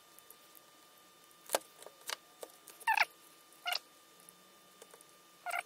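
About five short, faint clicks and squeaks of a small screwdriver prying and scraping at the plastic brush-holder housing of a Hitachi angle grinder, a second or so apart, three of them with a brief squeal. The carbon brushes are being checked because the grinder sparks and runs in jerks.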